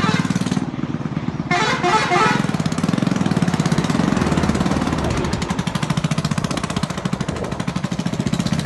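Motorcycle engine running steadily while being ridden, with a rapid, even pulse.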